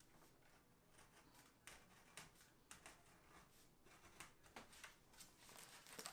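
Near silence, with faint scattered clicks and rustles of a peel-and-stick vinyl tile sheet being handled and pressed into place.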